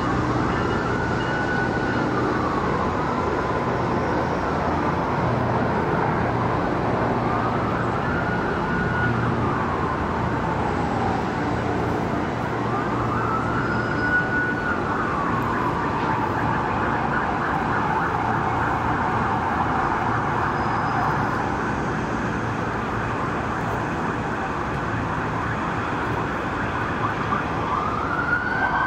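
An emergency vehicle siren wailing, its pitch slowly rising and falling every few seconds, over a steady low drone. Near the end a second siren joins with quicker overlapping sweeps.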